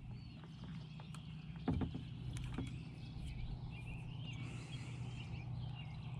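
Quiet open-air ambience over a low steady hum, with a single knock a little under two seconds in. Small birds chirp from about halfway through.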